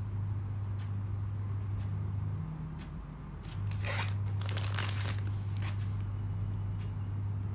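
Clicks and taps from a Dell laptop's touchpad and keyboard: scattered single clicks, then a quick run of taps about four seconds in. A steady low hum runs underneath, dropping out briefly in the middle.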